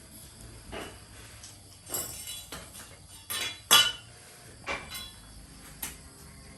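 A series of about six irregular clinks and knocks of hard objects being handled and set down, the loudest a little past the middle.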